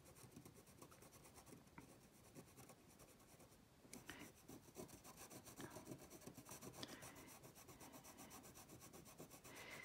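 Faint scratching of an Inktense colored pencil rubbed across fabric in short strokes, sparse at first and more continuous from about four seconds in.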